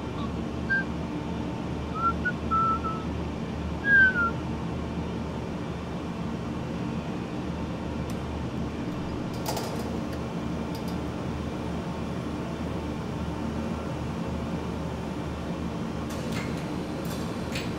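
Steady low machinery hum of an industrial plant hall. A few short, high gliding chirps come in the first four seconds, and a few faint clicks come later.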